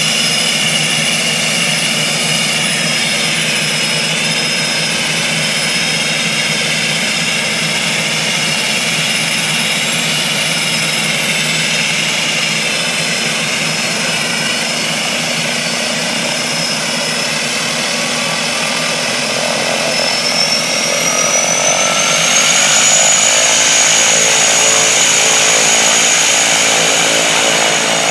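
de Havilland Canada DHC-6 Twin Otter's twin PT6A turboprop engines running close by, a steady propeller drone under a high turbine whine. About twenty seconds in the whine rises in pitch and the noise grows louder as engine power is increased, then holds at the higher setting.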